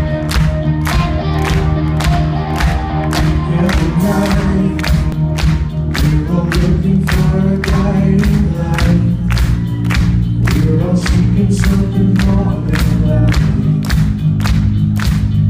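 Live rock band playing: electric guitar, bass and drum kit, with evenly spaced drum hits over sustained low chords.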